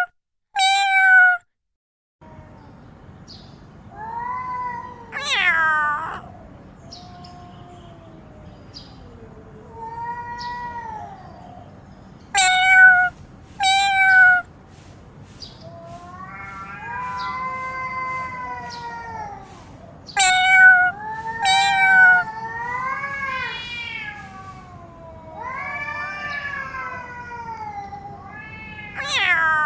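Domestic cat meowing again and again. Short, sharp meows are mixed with longer drawn-out meows that rise and fall in pitch. A faint steady background hiss sits behind them after the first couple of seconds.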